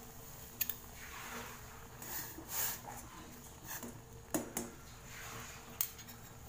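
Metal spoon stirring in a small stainless-steel saucepan of boiling water and basil leaves, giving a few sharp clinks against the pan and short scraping swells, over the faint steady sound of the pot at the boil.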